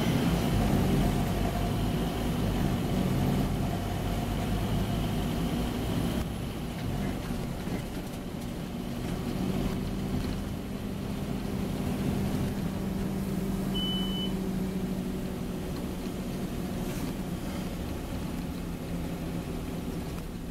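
Scania OmniCity N230UD double-decker bus's five-cylinder diesel engine and drivetrain running under way, heard from inside the lower deck. The engine note drops about six seconds in and then pulls steadily. A short high beep sounds about fourteen seconds in.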